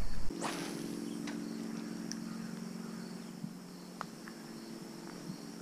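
Outdoor ambience: a burst of low rumble, like wind on the microphone, cuts off just after the start, leaving a steady low hum under a high, even insect drone, with a few faint clicks.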